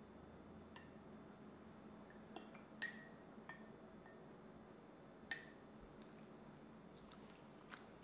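Metal spoon clinking against a glass coffee mug while scooping out soaked cheese cubes: several light, ringing clinks, the loudest about three seconds in, with a few fainter ticks near the end.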